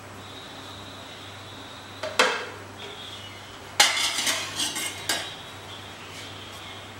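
Metal clinks and clatter of a steel spatula against a stainless-steel pressure cooker: one knock about two seconds in, then a quick run of clinks about four to five seconds in, over a steady faint hiss.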